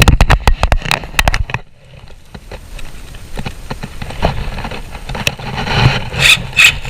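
Power drill driving a threaded cabinet-foot stud into a wooden block, starting with a rapid run of sharp clicks, then the drill motor running steadily.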